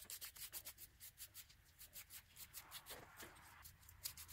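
Small wire brush scrubbing rust crust, loosened by a vinegar soak, off small metal hand-drill parts, in quick faint back-and-forth strokes, several a second.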